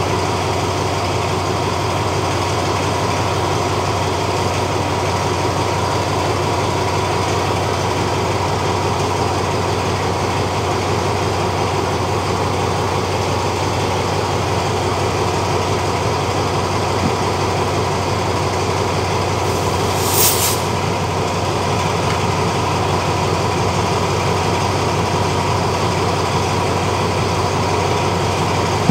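Alsthom diesel-electric locomotive idling steadily at a standstill, a low engine hum with a steady whine. A short hiss cuts in about twenty seconds in.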